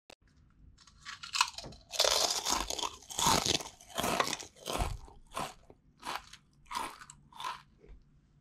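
Potato chips crunching, close up. A fast run of crunches starts about a second in, then single crunches come further apart and grow fainter toward the end.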